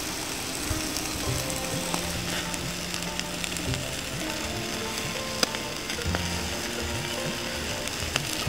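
Charcoal embers crackling and sizzling under whole fish roasting over them, fat dripping onto the coals, with sharp pops now and then, the loudest about five and a half seconds in.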